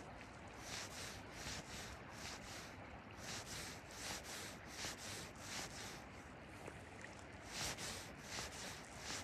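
River water lapping and sloshing close to the microphone, in soft irregular splashes a few times a second over steady current noise.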